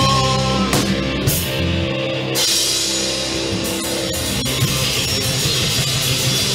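Indie rock band playing loudly: electric guitars, bass and a drum kit, with the high end of the mix getting denser about two and a half seconds in.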